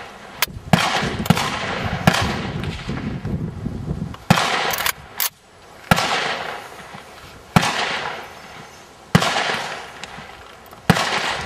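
A string of shots from a Dragunov-pattern semi-automatic rifle in 7.62x54R, about ten in all. A few come in quick succession near the start, and the rest follow roughly one to two seconds apart. Each crack trails off in a long echo.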